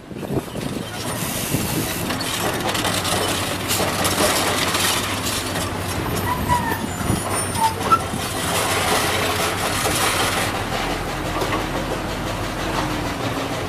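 Komatsu PC200 hydraulic excavator working, its diesel engine running under a steady clatter and scrape of metal, with a few short high squeaks around the middle.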